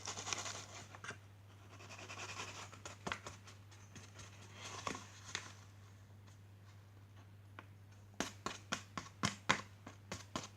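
Faint handling sounds of a leaking flour bag being dealt with: soft rustling at first, then scattered light taps, and about eight seconds in a quicker run of clicks and taps, four or five a second. A steady low electrical hum sits underneath.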